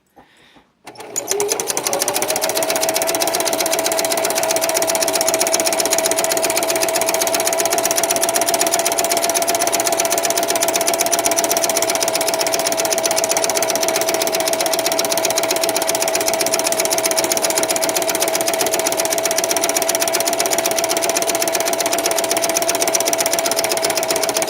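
Singer low-shank electric sewing machine stitching zigzag continuously at a steady speed. Its motor whine climbs to pitch about a second in and then holds one steady tone over a fast, even needle clatter.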